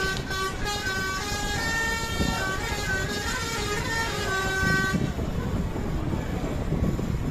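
Multi-tone telolet bus horn of the Basuri type playing a tune of held notes that change pitch every fraction of a second, stopping about five seconds in, over a low rumble.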